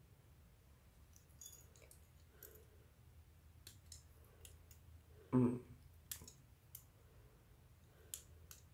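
Nail clipper snipping plastic model-kit parts off the runner: scattered small sharp clicks and snips, with one louder knock about five seconds in.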